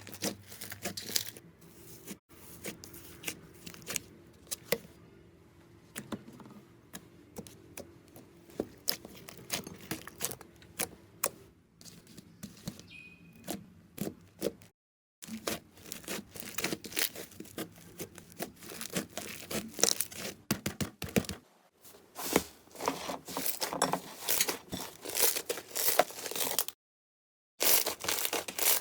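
Slime being squeezed, poked and stretched by hand, giving a dense, irregular run of small crackling and popping clicks. It is quieter for the first half and louder from about halfway through, with a few short breaks.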